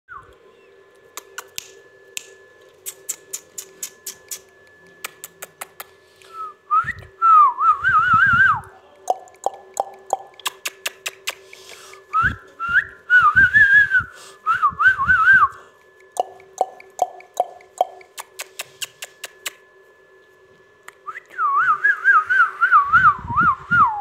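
Warbling whistles in three phrases of a few seconds each, the pitch wobbling quickly up and down, with runs of short, lower repeated notes between the phrases. Sharp light clicks are heard throughout over a steady hum.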